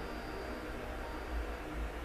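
Room tone: a steady low hum under faint even hiss, with no distinct sound event.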